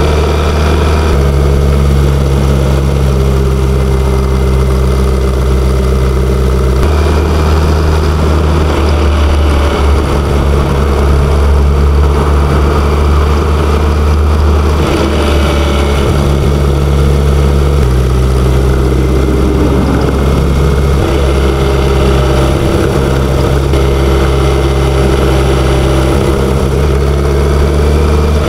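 BMW K1100LT's inline-four engine running on the road. The engine note holds steady for stretches and shifts in pitch several times, with a haze of wind and road noise above it.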